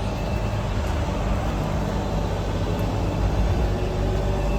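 Arcoaire Ten 3.5-ton central air conditioner condenser running: a steady low hum from its Goodman reciprocating compressor under the even rush of the condenser fan.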